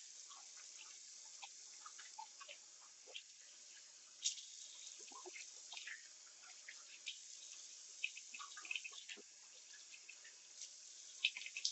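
Hands splashing water onto a face over a sink to rinse it: faint scattered splashes and drips.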